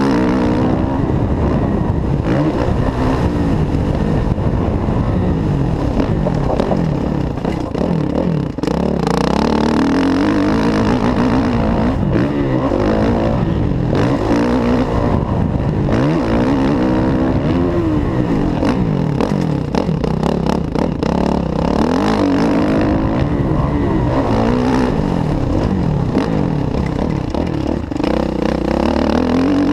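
Kawasaki KX450F's single-cylinder four-stroke engine revving up and backing off over and over as the motocross bike is ridden hard on a dirt track, its pitch rising and falling every second or two. The sound drops briefly about eight seconds in.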